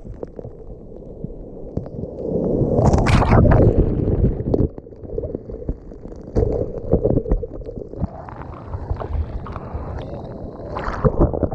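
Rough sea surf breaking and churning around a waterproof GoPro at the waterline, water washing and sloshing over the camera in uneven surges, the loudest about three seconds in.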